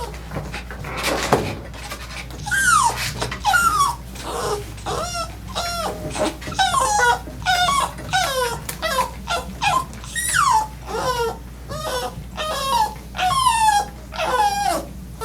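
Dog whining and yelping over and over: short cries that fall in pitch, about one and a half a second, starting a couple of seconds in.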